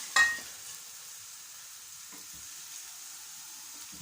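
Onions frying in oil in a pot, a steady faint sizzle. Just after the start a sharp clank with a short ring, the loudest sound, and a couple of soft knocks later on, like a utensil against the pot.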